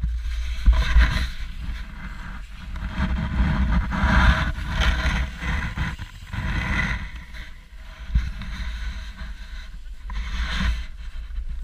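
Sled runners and boots scraping and crunching over snow as the sleds are moved along, in irregular surges over a constant low rumble on the action camera's microphone.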